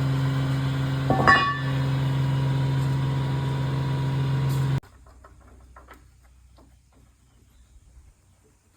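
A steady mechanical hum at one fixed pitch, with a brief higher rising squeal about a second in; the hum cuts off suddenly about five seconds in, leaving faint clicks and knocks of handling.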